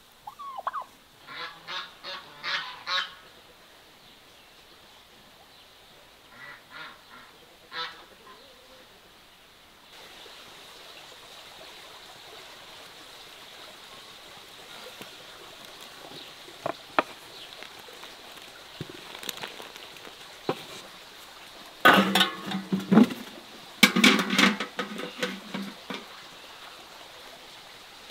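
A turkey gobbling twice, each a quick rattling run of notes. Then a large pot of cherry plums boiling with a steady bubbling hiss, and a wooden paddle stirring it, with a few sharp clicks and loud clattering and scraping bursts near the end.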